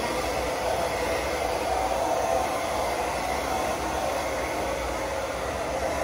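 Handheld hair dryer running steadily on a child's hair: an even rush of blown air with a faint steady whine from its motor.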